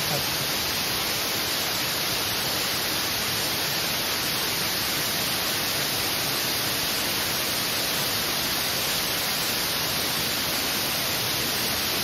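Waterfall rushing, a steady even hiss with no breaks.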